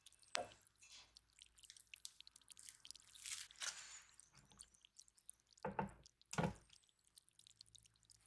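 Soft, wet squishing of thick chocolate filling piped from a piping bag onto a cookie, with small wet ticks and a longer squelch about three seconds in. A little before the end come two soft knocks as the top cookie is set down onto the filling.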